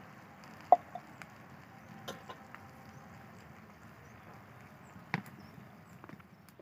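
A few sharp clinks of a metal spatula knocking against a steel karai, the loudest about a second in and another about five seconds in, over a low steady hiss.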